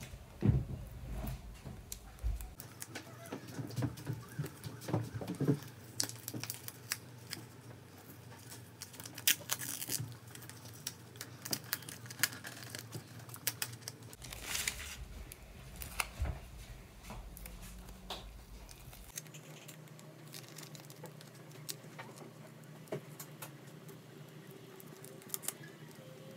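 Paper and tape-covered paper cutouts being handled and unwrapped by hand: rustling and crinkling with many small clicks and taps, busier in the first half.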